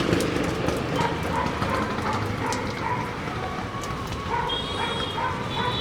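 A dog barking repeatedly in short yaps over a steady rattling noise.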